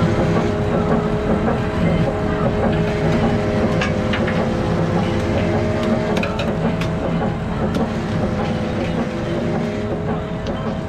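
Fishing boat's engine and on-board machinery running steadily, a constant low drone with a few short clicks and knocks on top.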